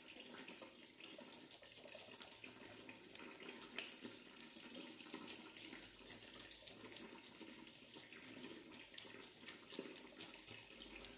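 Tap water running steadily into a kitchen sink, with small wet splashes and clicks as a cuttlefish is handled and cleaned over it.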